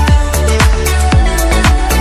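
Electronic dance music with a heavy bass and a steady kick-drum beat, each kick a deep falling thud, about three a second.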